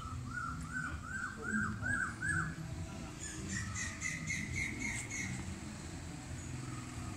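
A bird calling: a run of six quick arched notes, then a higher, faster run of short notes, over a low background rumble.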